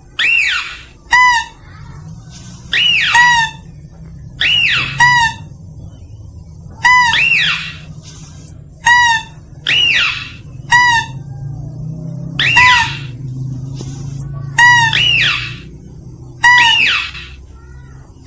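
Mouse-deer (kancil) lure call: a short high squeak followed by a longer falling squeal, the pair repeated about every two seconds, over a steady low hum.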